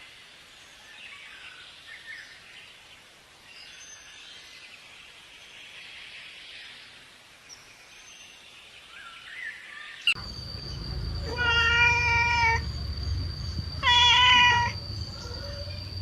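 Faint outdoor ambience for about ten seconds, then a domestic cat meows twice, each meow about a second long, over a steady low hum.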